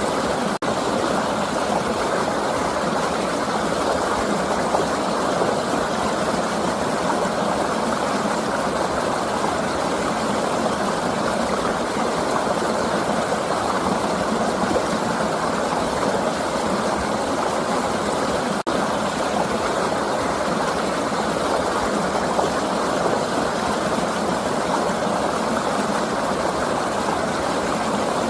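Flowing river water rushing steadily in an even, unbroken noise, with two momentary dropouts, one about half a second in and another about two thirds of the way through.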